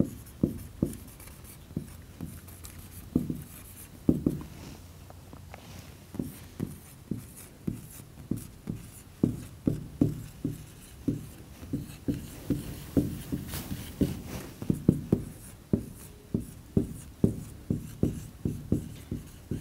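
Marker pen writing on a whiteboard: a run of short, irregular taps and strokes as figures and letters are written out.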